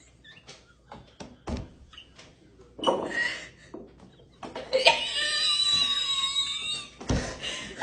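A person's short loud vocal burst about three seconds in, then a high-pitched scream held for about two and a half seconds.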